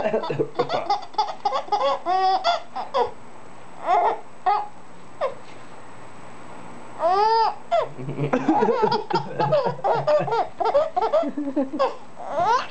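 Five-month-old baby laughing in runs of quick giggles and belly laughs, with a lull in the middle and a loud high squeal of a laugh, rising then falling, about seven seconds in.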